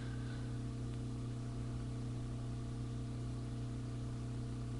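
Steady low hum with a row of overtones over a faint hiss, unchanging throughout: background noise from equipment or the room.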